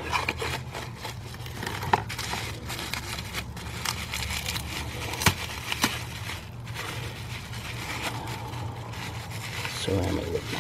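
Plastic bubble-wrap packaging crinkling and crackling as a new blower motor resistor is unwrapped, with the rustle of a cardboard parts box and scattered sharp clicks, over a steady low hum.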